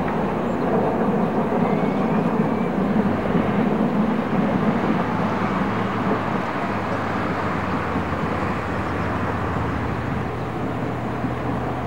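Distant class 38 (Prussian P8) steam locomotive hauling a train, heard as a steady rumble and hiss without distinct exhaust beats.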